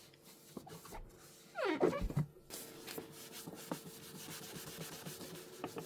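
Scrubbing on the grimy hinge area under an open dishwasher door: repeated rubbing strokes, with a short falling squeak about two seconds in.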